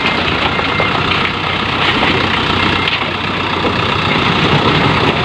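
Diesel dump truck's engine running steadily at low speed as the loaded truck creeps over a heap of sand and gravel, flattening it.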